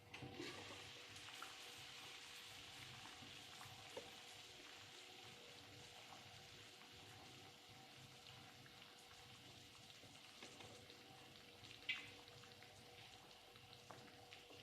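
Faint sizzling from a cooking pan. It starts suddenly and slowly dies down over a steady low hum, with a couple of sharp clinks near the end.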